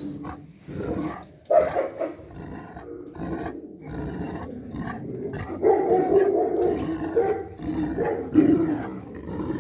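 Alabai (Central Asian Shepherd) dogs growling and barking in repeated bursts, with a longer drawn-out growl about six seconds in.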